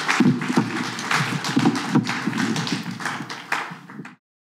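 Audience applauding: many hands clapping irregularly, fading away and then cutting off abruptly about four seconds in.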